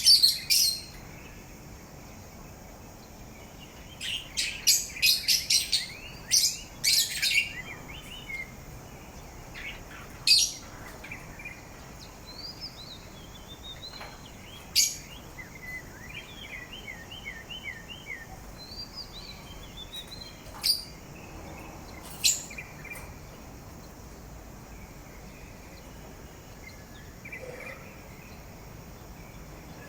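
Pet parrot calling: loud, shrill chirps, a quick run of them about four to seven seconds in and single ones later, with softer warbling chirps in between.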